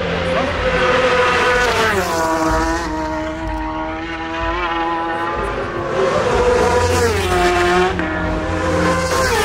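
Supersport racing motorcycles passing at high revs, each engine's pitch dropping as it goes by: once about two seconds in, and again twice near the end.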